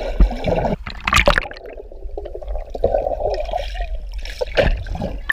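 Water heard with the microphone underwater as swimmers go under: a dull, muffled swirl of water with scattered small knocks.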